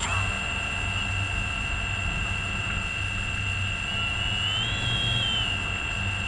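FPV quadcopter's four T-Motor F60 brushless motors arming and spinning up to idle, then a steady high whine from the props. The pitch rises briefly a little past the middle before settling back.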